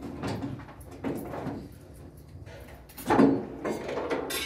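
Knocks and clatter from office desks and partition panels being handled and taken apart, with the loudest clunk about three seconds in.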